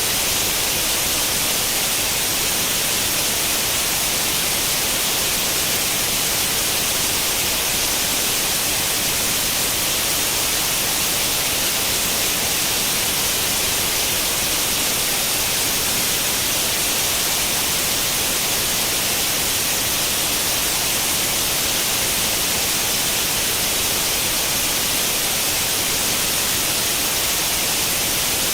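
Steady white-noise hiss like the static of an old tube television tuned to no channel, unchanging and brightest in the treble.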